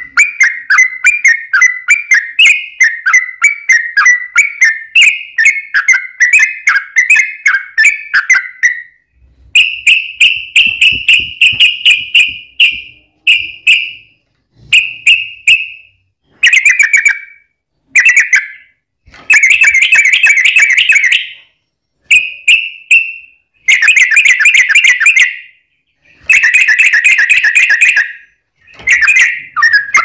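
Yellow-vented bulbul (trucukan) singing its long, rapid chattering 'ropel' song. For about the first nine seconds the notes run on without a break; after that the song comes in a series of shorter bursts of fast trills with brief pauses between them.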